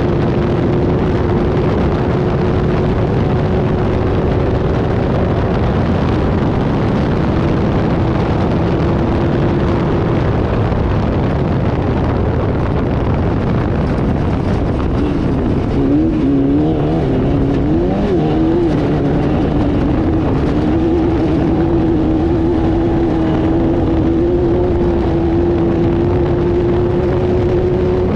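Off-road race car engine running hard at a steady, held pitch over heavy rushing noise from wind and terrain. About halfway through, the engine note wavers up and down for a few seconds, as revs change over rough ground or through a shift, then settles back to a steady pitch.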